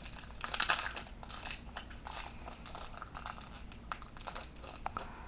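Crinkling and rustling of a trading-card pack wrapper being opened, with the paper cards inside being handled.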